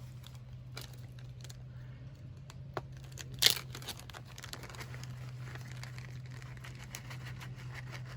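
Crinkling and light rustling of a foil-pack meal as shredded cheese is sprinkled over it, with scattered small clicks and one sharper click about three and a half seconds in, over a steady low hum.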